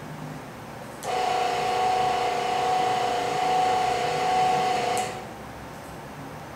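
Small electric hoist motor of an elevator prototype running with a steady whine for about four seconds as it raises the car one floor, starting and stopping abruptly.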